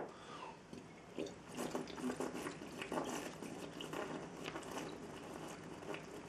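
A glass bottle being chugged: liquid glugging from the upturned neck, with irregular swallowing gulps, starting about a second in.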